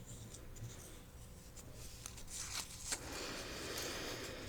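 Soft rustling and crinkling of small folded paper slips being handled, with one short click about three seconds in.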